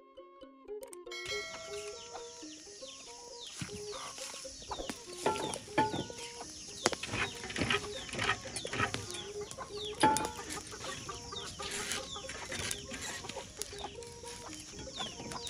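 A heap of dry grass burning over fresh groundnuts to roast them, crackling and popping irregularly over a steady hiss, starting about a second in. Chickens cluck among the crackles, and soft background music plays underneath.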